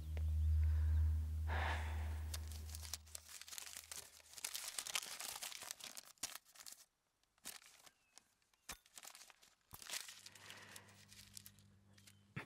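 A paper packet being unfolded and crinkled by hand: a dense run of papery crackles from about two seconds in, stopping around seven seconds, then starting again briefly near the end. A low steady hum fades out under the first three seconds.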